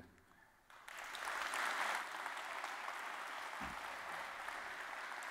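Audience applauding. It starts just under a second in, is loudest for the first second or so, then goes on steadily.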